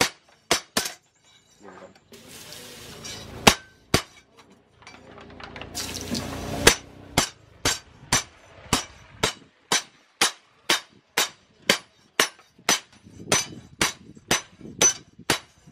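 Hand hammer striking a flat steel knife blank cut from a leaf spring on a small post anvil: sharp metallic blows, a few scattered ones early, then a steady run of about two blows a second from about halfway through.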